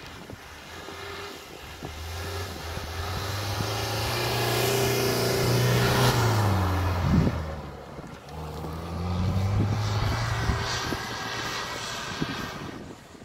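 Off-road vehicle engine, a Mitsubishi Pajero, revving hard and then easing off, rising in pitch to a peak about six seconds in, dropping, then climbing again before dying down near the end. A sharp knock about seven seconds in.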